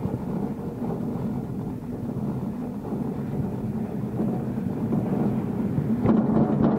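Steady mechanical rumble of the old Fedaia single-person cage lift running as the open cage rides up its cable past a pylon. Drum-heavy music comes in near the end.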